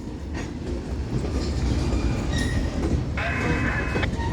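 Freight cars of a Union Pacific manifest train rolling past with a steady low rumble of wheels on rail. A brief high wheel squeal comes about three seconds in and lasts about a second.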